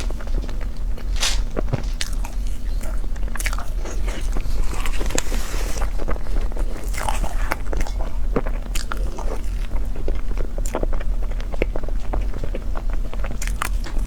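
Close-up eating sounds: a person biting and chewing food, with many irregular short clicks and smacks over a steady low hum.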